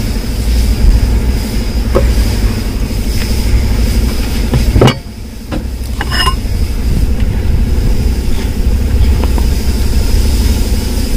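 Steady low mechanical rumble, with a few light metallic clicks as starter-motor parts are handled; the rumble drops away abruptly about five seconds in and returns a second later.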